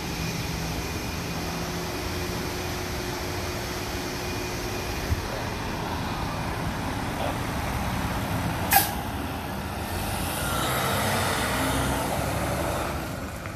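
Fire engine's diesel engine running as the truck manoeuvres on the road, with a sharp air-brake hiss about nine seconds in. The engine grows louder and rises in pitch in the last few seconds as the truck pulls past close by.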